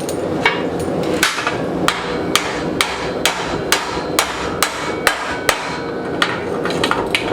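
A hammer striking hot flat steel bar on an anvil at an even pace of about two blows a second as the bar is forged into a curve.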